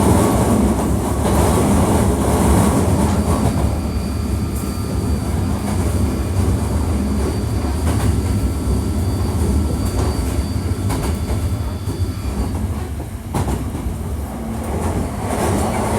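Hankyu 1300 series electric train running, heard from inside the passenger car: a steady rumble of wheels on rail with occasional rail-joint clicks and a faint steady whine. The whine stops about thirteen seconds in.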